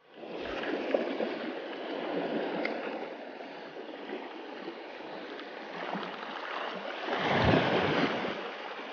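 Small waves washing over a stony shore at the water's edge, a steady wash that swells louder about seven seconds in.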